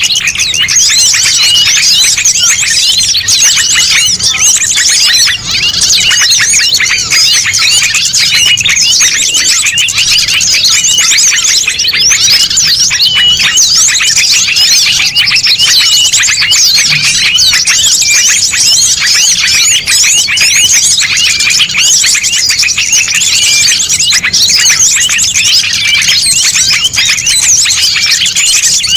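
Dense, noisy chorus of many small songbirds chirping and twittering over one another without pause: a mixed small-bird lure recording made to draw wild birds in.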